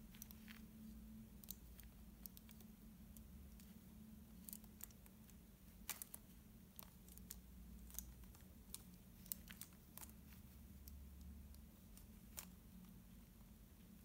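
Faint, irregular clicks of a 72-piece Rubik's Snake's plastic wedges being twisted and pressed into place, over a faint steady hum.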